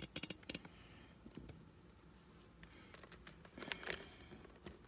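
Faint handling noise as dolls are moved and set on a wooden tabletop: a quick run of small clicks and taps at the start and another cluster just before the end, quiet in between.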